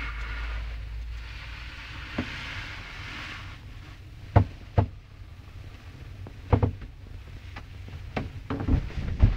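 Scattered sharp knocks and clicks, several in quick pairs, starting a little under halfway through, over a low steady rumble and hiss.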